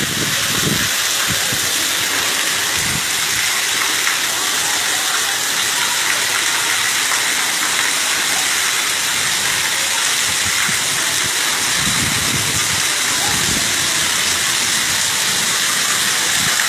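Heavy rain pouring down in a steady, loud hiss, with faint voices under it near the start and again about twelve seconds in.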